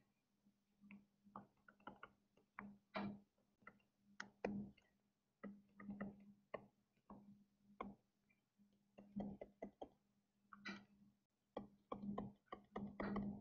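Faint, irregular taps and scratches of a stylus on a tablet screen during handwriting.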